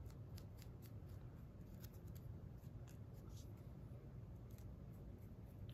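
Faint, irregular soft ticks and scratches of a small paintbrush working paint over a tiny 3D-printed plastic relay box held in the fingers, over a low room hum.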